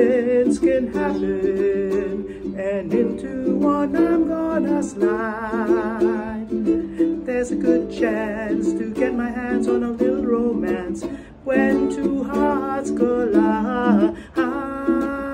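A man singing a melody with vibrato on the held notes while playing a ukulele.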